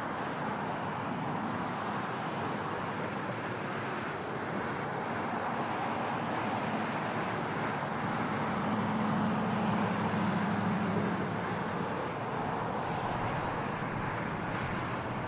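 Outdoor ambience of steady distant traffic with some wind, and a low engine hum that swells and fades about eight to eleven seconds in.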